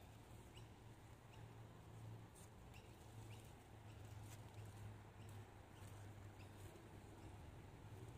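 Near silence: faint outdoor background with a steady low hum and scattered faint, short bird chirps.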